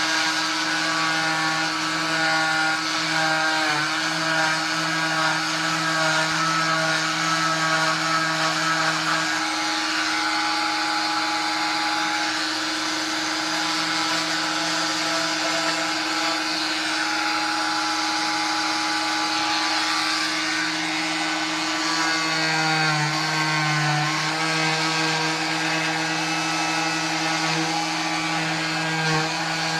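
Oscillating cast saw with its dust-extraction vacuum running steadily as it cuts through a leg cast: a continuous motor whine whose pitch wavers as the blade is pressed into the cast, most noticeably in the last third.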